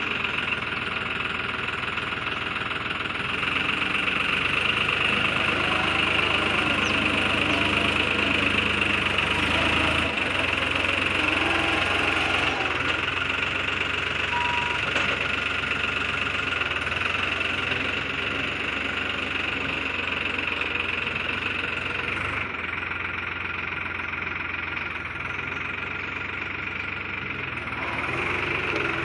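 New Holland 3630 tractor's three-cylinder diesel engine running under loader work, its loudness rising and falling with the load: up a few seconds in, easing off past the middle and picking up again near the end.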